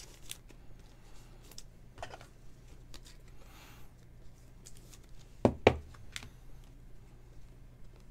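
Trading cards being handled and a card slid into a rigid plastic top loader: faint rustling and small plastic clicks, with two sharp taps close together about five and a half seconds in.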